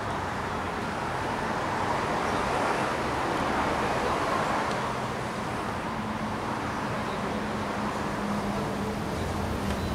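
Steady rumble of road traffic, swelling for a few seconds in the middle as if vehicles are passing, with a faint low engine hum later on.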